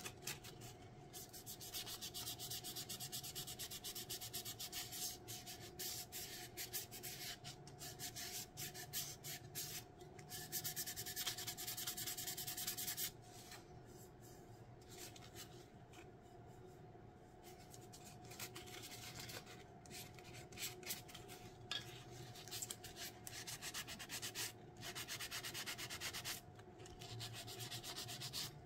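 Hand sanding of the epoxy coat on a glittered stainless steel tumbler with a sanding pad: rapid, irregular back-and-forth rubbing strokes. They go quieter for several seconds about halfway through, then pick up again.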